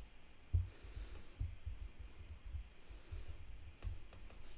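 Soft low thuds and handling noise as slime containers and a palette are worked on a table, with a faint airy hiss about a second in.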